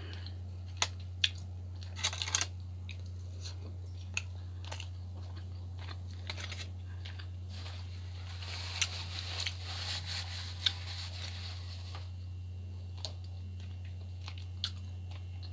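Close-miked chewing and mouth sounds of someone eating a forkful of baked salmon and vegetables, with scattered sharp clicks and a stretch of crackly noise from about 8 to 11 seconds in. A steady low hum runs underneath.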